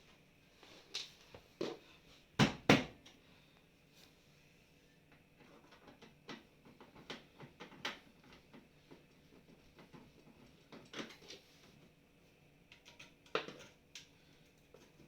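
Scattered clicks and knocks of hands and tools on a dishwasher's panels as they are fitted and their screws tightened. Two loud knocks come close together about two and a half seconds in, with lighter ticks in between and another sharp knock near the end.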